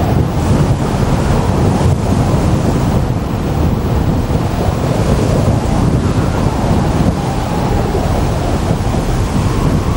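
Airflow buffeting the microphone of a camera mounted on a hang glider's wing in flight: a steady, heavy rush of wind noise with a strong low rumble.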